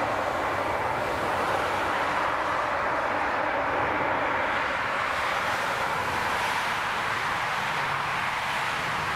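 Four-engined Airbus A380 airliner's jet engines running at low power as it rolls along the runway after landing: a steady rushing roar that stays level throughout.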